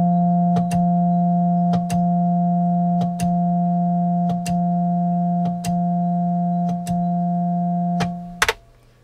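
Roland Juno-60 analog polysynth holding one steady, unwavering note, with a sharp click about every second and a quarter and a slight dip in level at each. The note stops a little before the end.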